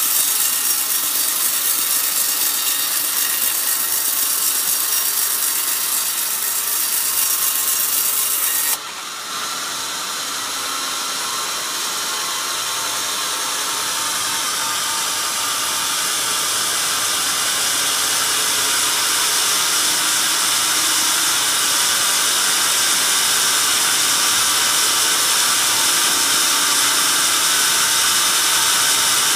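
Large vertical band sawmill blade cutting lengthwise through an old coconut log, a loud, steady, high-pitched sawing noise. It drops suddenly about nine seconds in, then slowly builds back up.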